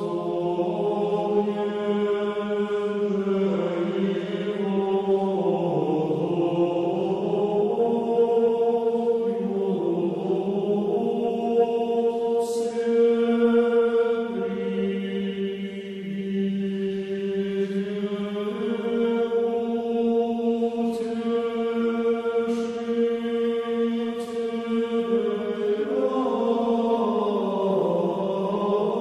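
Background music of slow vocal chanting: long held notes over a steady low drone, gliding from one pitch to the next, with a few faint brief high ticks near the middle.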